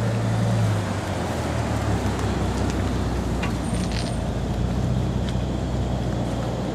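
Bentley Continental GT's twin-turbo W12 engine running at low speed as the car rolls slowly past, a steady low hum.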